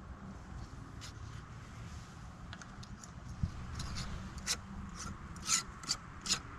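Beehive equipment being handled: a series of short scrapes and rubs, sparse at first and coming thicker and sharper in the second half, over a low steady hum.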